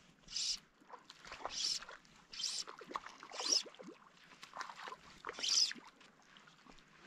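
Fly line being stripped in by hand, a short hiss about once a second, with light water splashing from a hooked fish near the surface.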